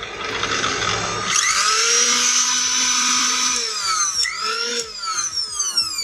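Mixer grinder's electric motor whining as it spins up fast, runs at speed, and is switched off and on a couple of times, its pitch dropping and climbing again, before it winds down near the end.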